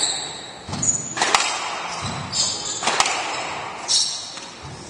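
Squash rally: the ball is struck and cracks off the court walls twice, about a second and a half apart, while players' shoes squeak on the wooden floor between shots.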